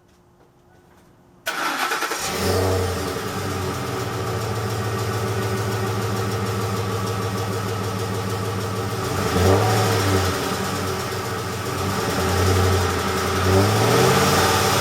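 Ford 5.4L 3-valve Triton V8 starting up about a second and a half in, settling into a steady idle, then revved in short blips several times in the second half. The engine carries the ticking that later turned out to come from failing coil packs and spark plugs.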